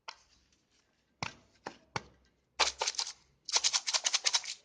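A thin plastic snack cup with a heat-sealed lid being handled: a few separate clicks, then two runs of rapid crackling ticks in the second half.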